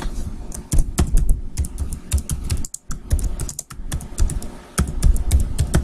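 Typing on a computer keyboard: a quick, irregular run of key clicks, broken by a short pause a little before halfway.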